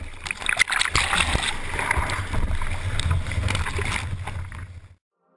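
Whitewater rushing and spraying over a surfboard-mounted camera as the board rides a breaking wave, with a heavy wind-and-water rumble on the microphone and scattered crackles. It fades out shortly before the end.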